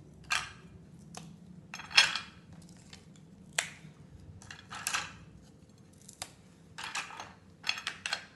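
Pieces of crisp sesame brittle (til chikki) clicking and scraping against ceramic plates as they are picked up and set down: about seven short, sharp clatters a second or so apart.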